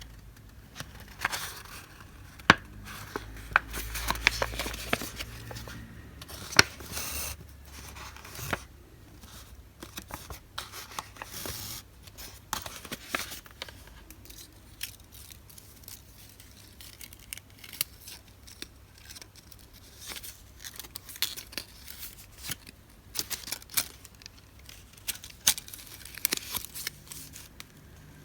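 Paper stationery goods and their wrappings being handled: a string of sharp clicks and snips with paper rustling, busiest in the first third.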